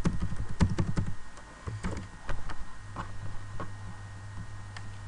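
Computer keyboard being typed on to enter a password: a quick run of keystrokes in the first second or so, then a few scattered clicks, over a steady low hum.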